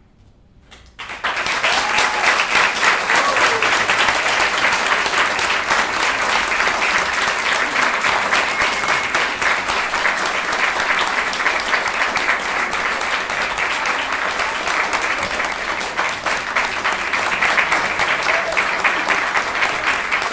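Audience applause breaking out suddenly about a second in and carrying on steadily as dense clapping, with a few voices among it.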